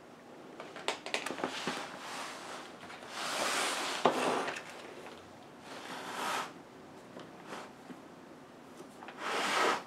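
Hard plastic panels of a folding cat carrier being lifted and snapped into place: a few stretches of plastic scraping and rubbing, with a sharp click about four seconds in.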